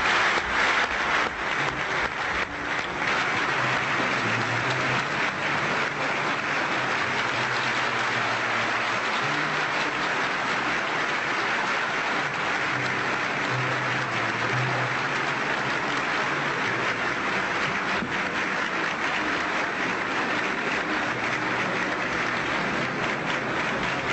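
A large audience applauding at length, a dense, steady clapping that is loudest in the first couple of seconds. It is an ovation greeting the announced agreement.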